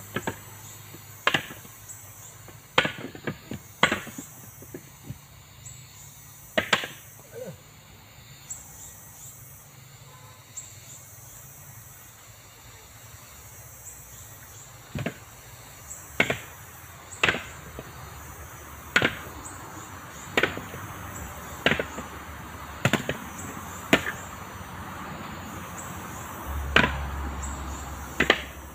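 Husked coconuts knocking one after another as they are tossed onto a pile while being counted. The sharp knocks come irregularly at first, then settle to about one every second or so from about halfway through.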